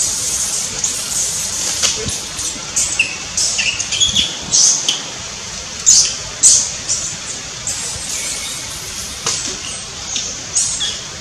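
Long-tailed macaques screaming in a run of short, shrill bursts, the loudest about six seconds in. These are distress screams set off by a scuffle within the troop.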